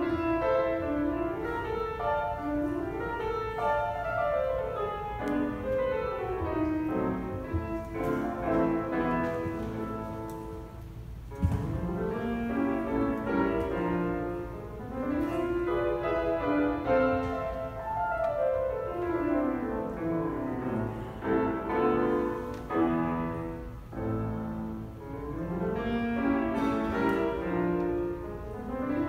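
Solo grand piano playing fast running figures that sweep up and down the keyboard. The playing softens briefly about ten seconds in, then a sharp low accent starts the next passage.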